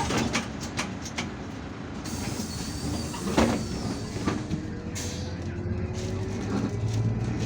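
Inside an Irisbus Citelis 12M city bus: rattles and knocks, a loud clack about three seconds in and a short hiss about five seconds in, then the engine note rising and growing louder as the bus pulls away.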